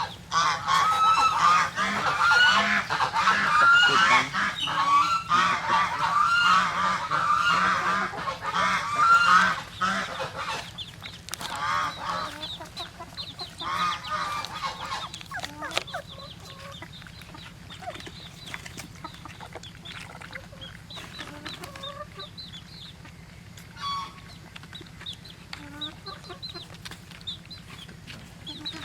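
A chorus of short, repeated animal calls, many overlapping and loud for about the first ten seconds, then fewer and quieter.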